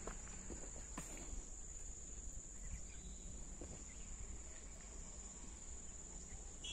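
A steady high-pitched insect trill over a low background rumble, with a couple of faint knocks near the start and about a second in.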